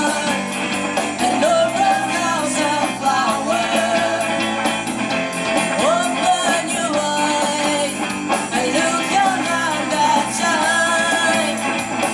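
Live rock band playing: a woman sings the lead melody over electric guitar, bass guitar and a drum kit keeping a steady beat.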